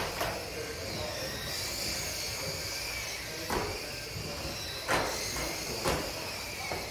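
Small model racing cars' electric motors whining at a high, wavering pitch as they race. Sharp knocks come near the start and about three times in the second half, as cars hit the track edges or each other.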